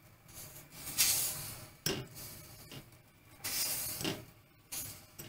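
Stiff pieces of dried salted cod handled in a glass bowl: a few brief scrapes and light clicks against the glass.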